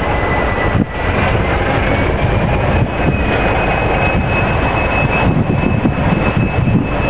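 Long train of loaded open coal wagons rolling slowly past, the wheels rumbling and knocking over the track. A thin high squeal runs through it and steps up in pitch about two and a half seconds in.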